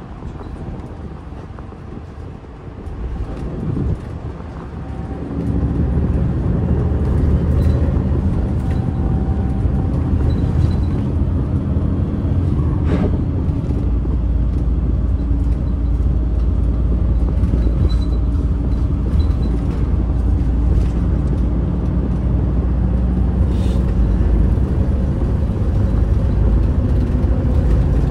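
Daewoo FX116 intercity bus engine running under way, heard from inside the passenger cabin. It grows louder about five seconds in, then runs steadily with a deep low hum.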